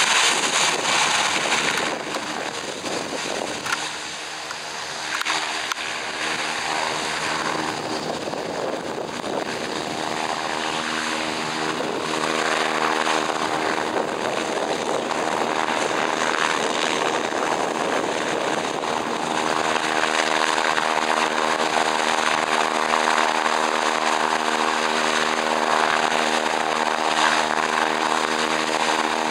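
Twin PT6A turboprop engines of a Beechcraft King Air C90GTi running on the ground, a steady turbine whine with propeller hum. It dips a few seconds in, then grows louder and stronger in the hum from about the middle on.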